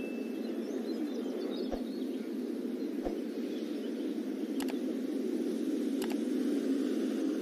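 Steady, muffled background noise with a few short clicks. The last click, about six seconds in, is the mouse-click sound effect of a looping subscribe-button animation.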